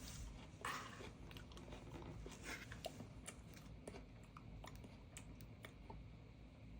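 Faint scattered clicks and brief light rustles, like small objects being handled.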